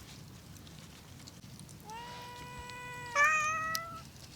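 Domestic cat meowing twice, begging for food: a long, even meow about two seconds in, then a louder one straight after it.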